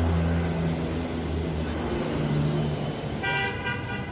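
Street traffic: a motor vehicle's engine running close by with a steady low hum, then a vehicle horn sounds about three seconds in and lasts close to a second.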